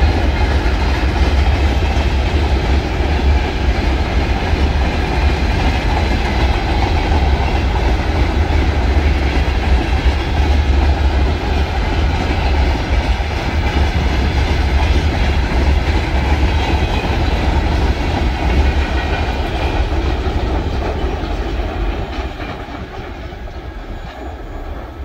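Freight train of open gondola wagons rolling past, wheels clattering over the rail joints with a steady rumble. The sound fades near the end.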